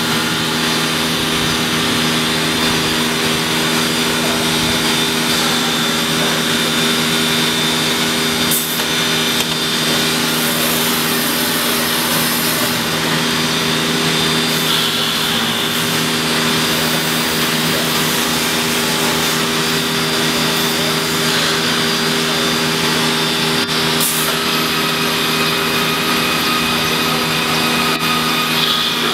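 CNC wood router machining a wooden panel: a steady, loud mix of spindle whine and cutting noise over a constant machine hum.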